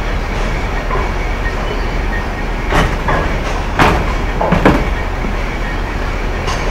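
Bowling alley ambience: a steady rumble of bowling balls rolling down the lanes, with three sharp crashes, about three, four and four and a half seconds in, the last the loudest.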